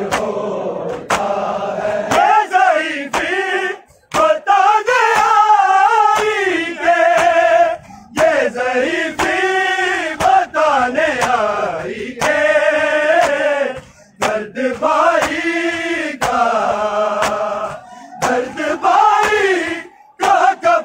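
A large crowd of men chanting a Muharram noha in unison, sung phrases of a few seconds with short breaks between them. Sharp slaps of hands beating on chests (matam) recur in rhythm under the singing.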